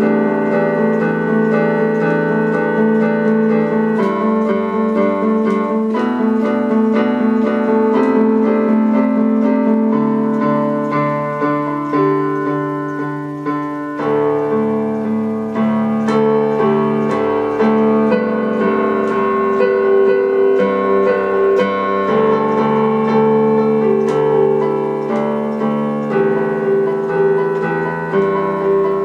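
Piano music with a melody over steadily changing chords.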